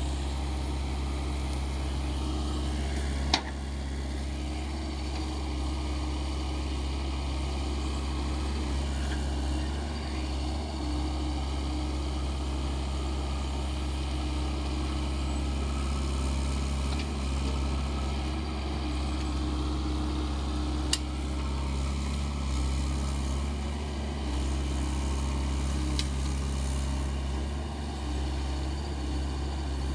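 SANY SY75C excavator's diesel engine running steadily while it digs, a constant low drone. Three short sharp clacks stand out, about three seconds in, around twenty-one seconds and about twenty-six seconds in.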